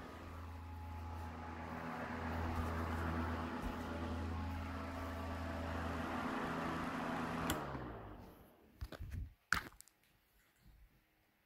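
Lasko 18-inch stand fan running with a smaller 12-inch desk-fan blade fitted: a steady motor hum made of several tones. About seven and a half seconds in there is a click, and the hum drops in pitch and fades as the blade spins down, followed by a few light knocks.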